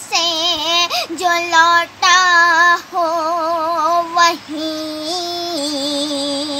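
A solo female voice singing an Urdu ghazal, drawing out long held notes with a wavering, ornamented pitch and short breaths between phrases.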